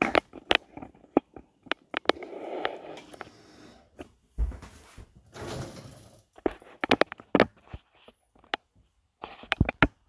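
Whirlpool WFO3P33DLXUK dishwasher's door and racks being handled after the cycle: a string of sharp clicks and knocks with two short scraping stretches, and a low thump about four and a half seconds in.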